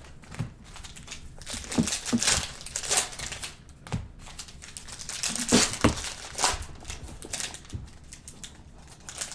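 Trading card pack wrappers crinkling and tearing as packs of football cards are ripped open and handled, in short irregular rustles and clicks.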